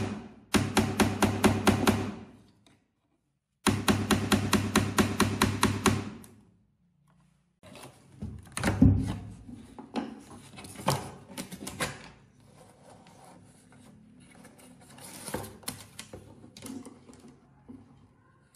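A workshop tool striking rapidly and evenly, about six times a second over a steady hum, in two short bursts. It is followed by scattered knocks, taps and scraping from handling work.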